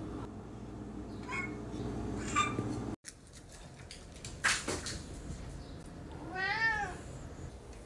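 Hungry domestic cats meowing for food: two short meows in the first few seconds, a sharp knock about halfway through, then one longer meow that rises and falls near the end.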